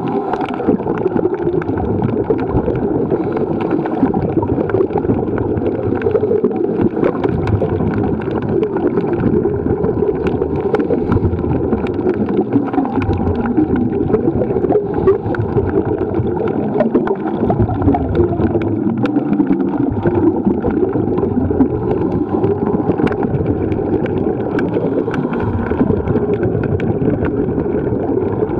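Muffled, steady rushing and gurgling of water heard underwater through a camera's housing, with scattered faint clicks.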